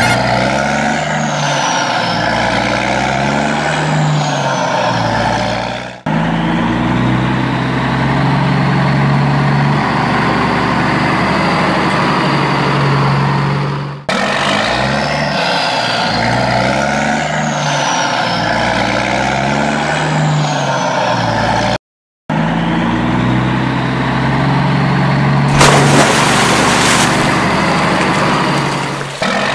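Heavy truck engine sound effect laid over the picture: an engine revving up and down and running between revs. The same passages repeat, broken by abrupt cuts and one brief dropout. A short loud hiss of air comes near the end.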